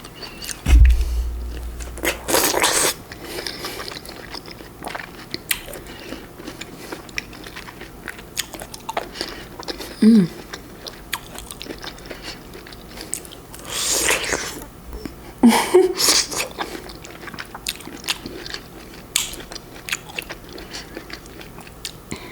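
A person eating fresh fruit close to the microphone: bites and chewing with crisp, wet mouth sounds, louder bursts a few times. A heavy low thump about a second in.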